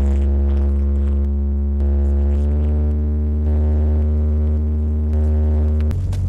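Vehicle engine running at a steady speed, a constant drone with heavy low rumble. Its pitch shifts slightly about two and a half seconds in and changes again near the end.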